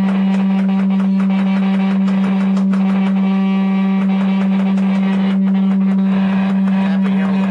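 Steady low test tone, about 200 Hz, played through a Fender Blues Deluxe Reissue guitar amplifier and its speaker, broken up by rapid crackling clicks and buzz that come and go, thickest in the first few seconds. This is the amp's intermittent buzz fault, which was traced to broken wires in a ribbon cable between its circuit boards.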